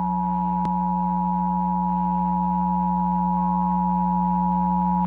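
Emergency Alert System attention signal: the steady two-tone alert sounding over a low hum, cutting off at the very end. It marks the start of an emergency alert, here a national periodic test. A single click comes about two-thirds of a second in.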